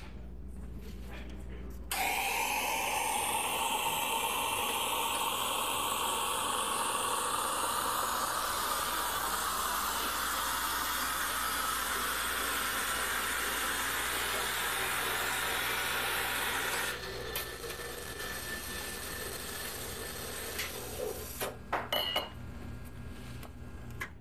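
A loud, steady machine noise starts abruptly about two seconds in and cuts off some fifteen seconds later, with a tone inside it that slowly rises. A few light clicks and knocks of handling follow near the end.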